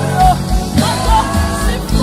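Slow live worship music: long held keyboard and bass chords over an even low pulse, with a singing voice gliding through a melodic line.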